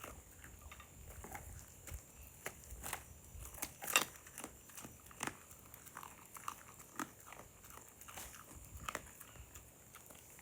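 Fried fish being chewed and crunched: irregular small crackles and clicks of eating, one sharper crunch about four seconds in.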